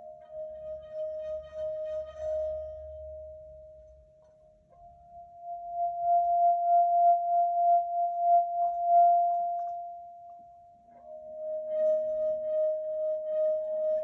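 Singing bowl ringing with a sustained, pulsing tone that swells and fades three times, the middle swell a little higher in pitch.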